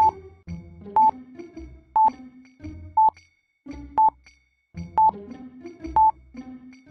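Countdown timer beeping once a second, a short high tone each time, about seven beeps, over light background music.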